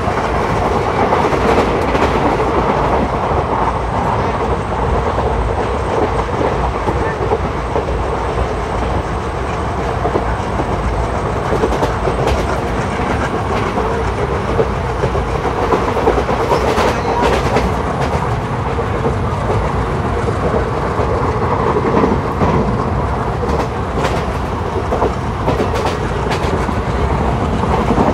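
ICF passenger coach running along the track: a steady rumble of wheels on rail with clickety-clack clatter and occasional sharper clicks over rail joints.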